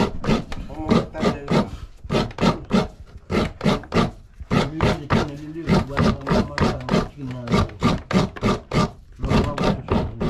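Fresh coconut being grated on a stool-mounted serrated scraper: an even rhythm of rasping strokes, about three to four a second, as the white flesh is shaved out of the half shell.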